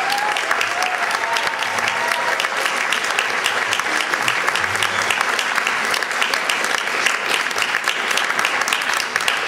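Audience applauding: dense, steady clapping from a crowd in a hall.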